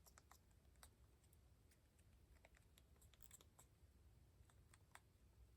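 Near silence with faint, scattered small clicks and ticks, as of a plastic cordless phone handset being handled and its buttons pressed.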